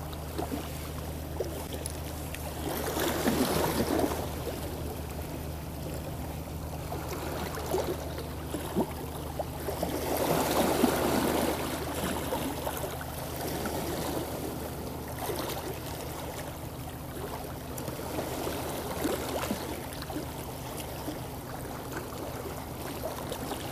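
A fishing boat's engine running with a steady low hum, with water sloshing against the hull. The sloshing swells louder twice, a few seconds in and again about ten seconds in.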